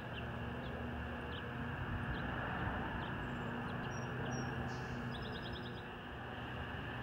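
Small birds chirping in short scattered calls, with a quick run of about six chirps a little after five seconds in, over a steady low outdoor rumble.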